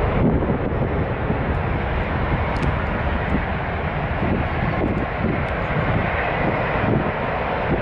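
Jet airliner's engines running loud and steady, with wind buffeting the microphone.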